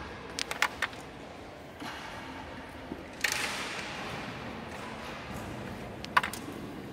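Carrom striker shot into the coins: a sudden clack, then a short hiss of pieces sliding across the powdered board that dies away within about a second. A few light clicks come before the shot, and one sharp click, the loudest, comes near the end.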